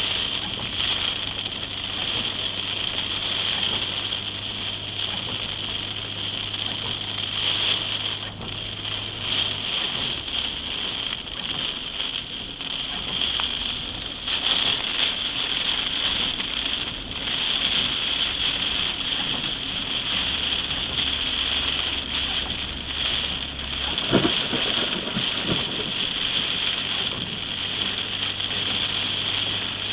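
Heavy storm rain pounding on a car's windshield and roof, heard from inside the car, with a low steady engine hum underneath. A sudden louder thump comes about three-quarters of the way through.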